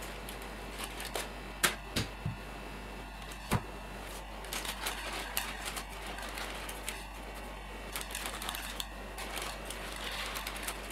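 A few sharp knocks in the first few seconds as the sponge cake is turned over on a wire cooling rack, the loudest at about one and a half and three and a half seconds in. Then parchment baking paper crinkles and rustles steadily as it is peeled away from the sides of the cake.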